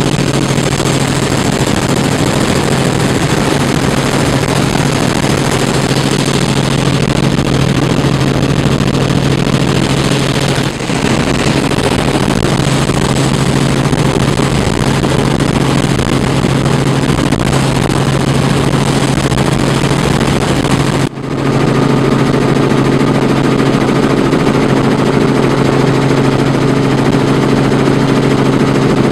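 Helicopter cabin noise: the rotor and engine drone loudly and steadily, heard from inside the cabin. The sound dips very briefly twice, and after the second dip a humming tone stands out more clearly.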